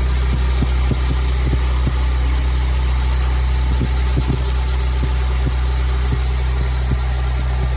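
A pulsed laser cleaning machine runs steadily while it works grime off a high-strength steel gear sprocket. A constant low hum sits under a bright hiss, with small irregular crackles scattered through.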